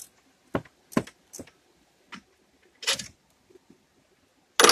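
Metal clinks and knocks as the alternator is worked loose and lifted out of its mounting bracket: several separate clicks, a short scraping rattle about three seconds in, and the loudest knock near the end.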